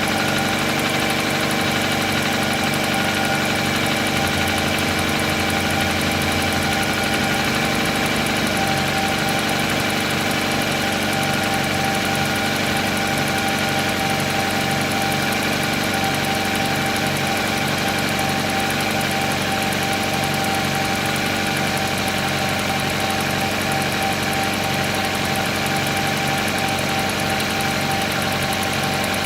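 Car petrol engine idling steadily from a cold start, still running on petrol before switching over to LPG.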